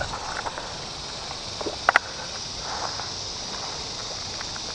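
Steady high-pitched outdoor hiss, with two or three short faint clicks about two seconds in.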